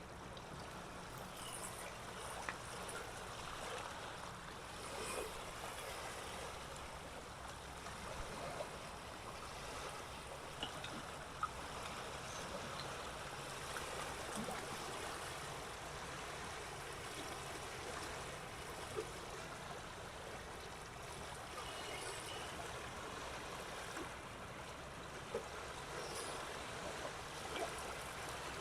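Loch water lapping and trickling: a steady wash with small splashes and ticks here and there.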